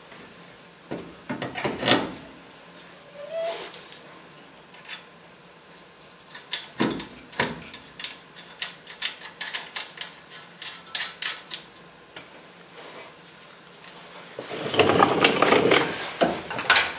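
Metal parts clinking and knocking as a steering knuckle with its hub and brake rotor is handled and fitted onto the ball joint studs, with scattered clicks and a denser run of clatter near the end.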